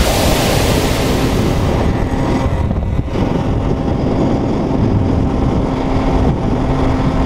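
Two-stroke Simson moped running at cruising speed, heard from on the moped itself, with heavy wind rush on the microphone. About two seconds in the wind eases and the engine's steady drone comes through.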